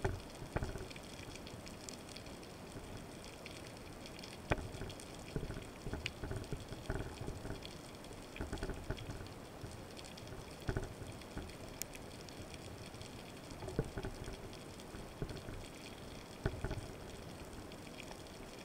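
Underwater sound heard through a camera mounted on a speargun: a steady hiss with irregular low rushes of moving water and a few scattered sharp clicks.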